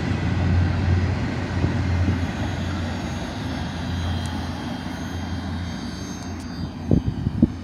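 Rolling noise of a double-stack intermodal freight train's last cars passing, a steady rumble that fades as the tail end moves away. A couple of low thumps come near the end.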